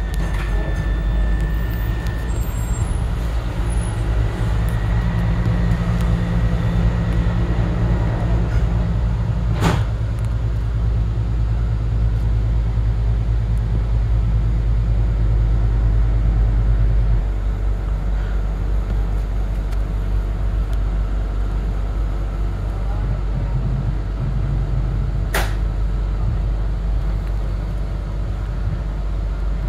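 Road traffic passing close by, cars and a box truck, over a steady low hum that shifts about halfway through. Two sharp clicks come about 10 and 25 seconds in.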